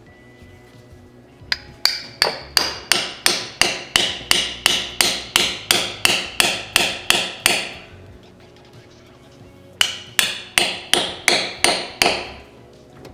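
Hammer striking a tool set in the centre of a Nissan 300ZX's flywheel: a fast, even run of about twenty sharp metal blows, a short pause, then about eight more. It is the bread trick, hammering bread packed into the crankshaft bore to force the old pilot bushing out.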